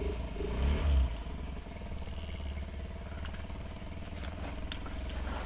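2003 Honda Metropolitan scooter's 49 cc four-stroke single-cylinder engine running at idle, briefly louder about a second in and then steady. Freshly tuned up, it runs a lot quieter.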